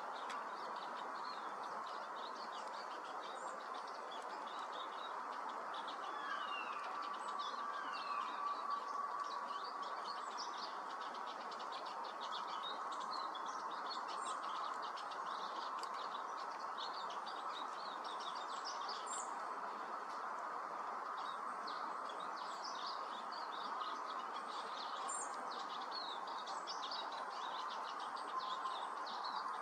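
Eurasian siskins twittering: a run of many short, high chirps with a few downward-slurred notes, over a steady rushing background noise.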